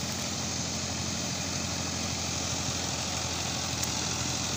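Mahindra Arjun Novo 605 DI-i tractor's diesel engine running steadily under load while it drives a rotavator through flooded mud to puddle a paddy field.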